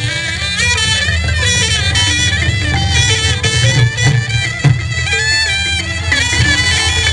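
Live Khmer traditional ensemble playing dance music: a reedy wind instrument carries an ornamented melody over a repeating drum beat, with xylophone in the mix.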